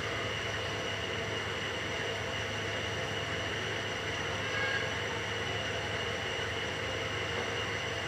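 A steady mechanical hum with a constant hiss, unchanging throughout.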